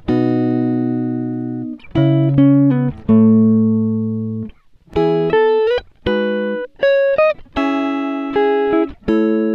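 Background music on guitar: plucked chords left to ring and fade, a new one every second or so, with short quick runs of notes between them.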